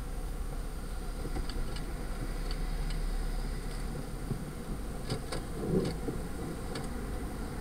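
Cabin noise of a Chrysler Town & Country minivan pulling over at low speed: a steady low engine and road rumble, with a few faint, irregular clicks.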